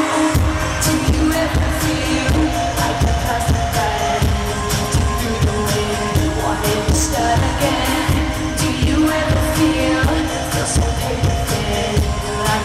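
Live pop band playing with a steady kick-drum beat that comes in right at the start, under sustained keyboard notes, while a woman sings lead into a microphone.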